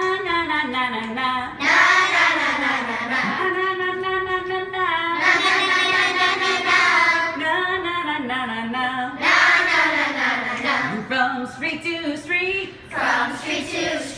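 A group of children singing a chant-like song together, with long held notes that rise and fall.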